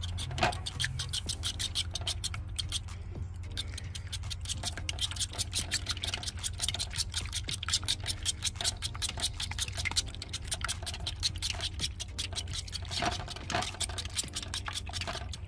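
A fork beating raw eggs in a bowl: quick, repeated clicks and scrapes of the fork against the bowl, several strokes a second, with the slosh of the egg.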